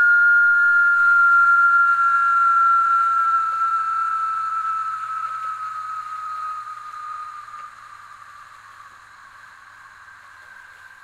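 3D-printed whistling spinning top, its hollow chamber with two chamfered slits acting as a resonator, giving a loud, scream-like whistle as it spins. The pitch sinks slowly and the sound fades as the top slows down. Near the end a quieter, steady second tone takes over.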